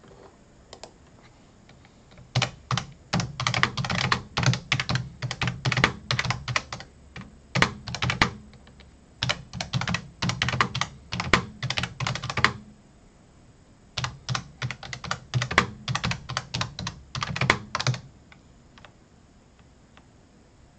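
Typing on a computer keyboard in fast runs of keystrokes, with a brief break partway through; the typing stops a few seconds before the end.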